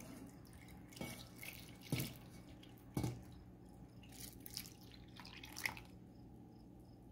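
Liquid jello pouring slowly from a stainless steel mixing bowl into a glass jello mold, quietly trickling and splashing over banana slices, with a few light knocks in the first three seconds.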